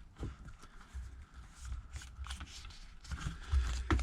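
Handling noise from an iPad Air being worked on: scattered light clicks, taps and rustles of plastic and glass as the replacement screen is pressed into the frame, with a few low thumps near the end.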